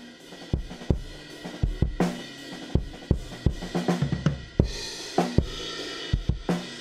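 Recorded drum kit playing back: kick, snare and hi-hat hits at a steady groove, with a cymbal crash ringing about two-thirds of the way in. The kick mic runs through a Distressor-style compressor plugin (Slate FG-Stress) whose release time is being turned up, softening the kick's compression.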